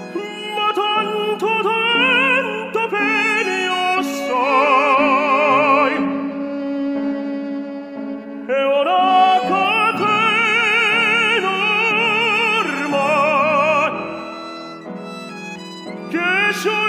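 Operatic tenor voice singing long held notes with wide vibrato over orchestral accompaniment with strings, in two long phrases with a quieter stretch between them.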